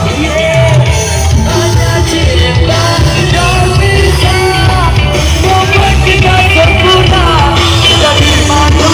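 Kecimol, a Lombok street-procession band, playing loud amplified music with a heavy, steady bass beneath a wavering melody line.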